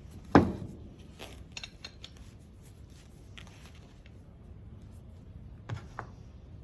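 Parts of a pressure washer's rotating nozzle being handled and set down on a hard surface: a sharp knock with a short ring about a third of a second in, a few light clicks, then two more knocks near the end.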